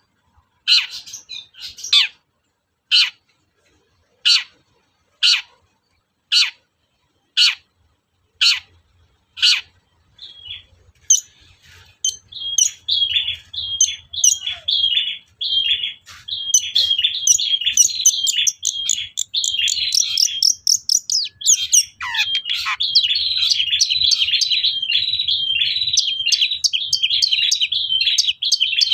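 Long-tailed shrike giving harsh, separate calls about once a second, then breaking about ten seconds in into a fast, unbroken chattering song of mimicked phrases.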